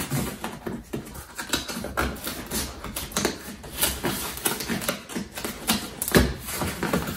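Packing tape being peeled off a cardboard shipping box and the box flap pried open: irregular crackling, scratching and rustling of tape and cardboard, with a few sharper tearing snaps.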